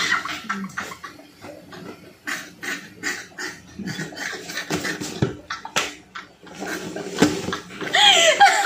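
A young woman laughing hard in irregular short, breathy gasps, getting louder near the end.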